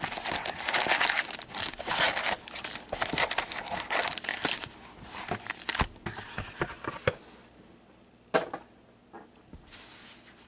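Cardboard trading-card hobby box and its card packs handled: dense rustling and crinkling that dies away about seven seconds in, then quiet with a single sharp tap.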